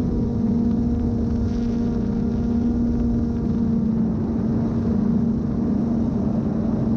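GoPro Karma quadcopter drone's propellers giving a steady hum in flight, over low rumbling wind buffeting.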